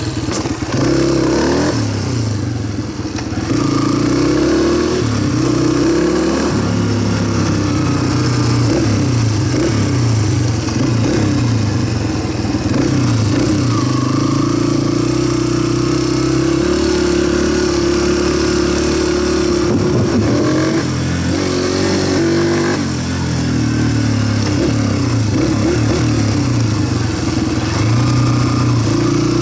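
Motorcycle engine running under load while being ridden, its pitch rising and falling as it revs and changes gear, with wind noise on the microphone.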